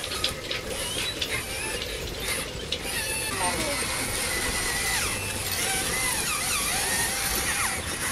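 RC model excavator (Volvo E598 replica) working, its gears and mechanisms giving a ratcheting run of clicks over a steady whirr. Higher wavering tones come in about three seconds in.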